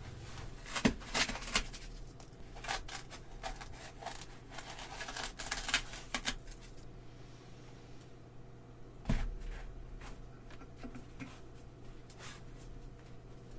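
NRB Ultralight aluminium balisong trainer being flipped, its handles clicking and clacking together in a quick run of clicks for about six seconds, then a few scattered clicks with one sharper clack about nine seconds in.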